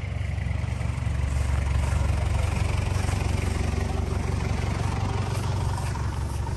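An off-road 4x4's engine idling close by: a steady, low, even running sound.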